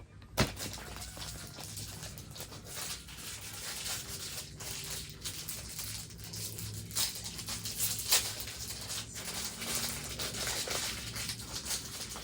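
Rustling and crinkling of plastic packaging as small fidget toys are handled and unwrapped, with a few sharp taps and clicks.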